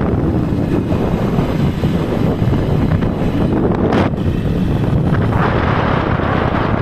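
Loud, steady wind rumble buffeting the microphone of a camera moving at speed, with a brief louder rush about four seconds in.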